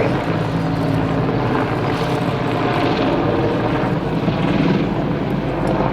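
Mil Mi-24V Hind helicopter flying a display pass: steady rotor and twin-turbine noise that swells and eases a little as it moves.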